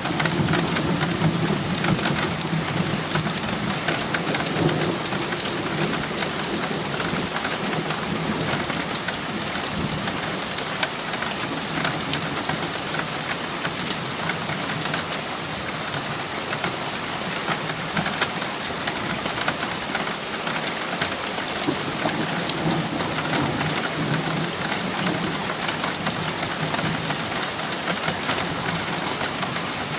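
Heavy thunderstorm rain falling steadily, with many close drops ticking. Low thunder rumbles through the first few seconds and again about two-thirds of the way through.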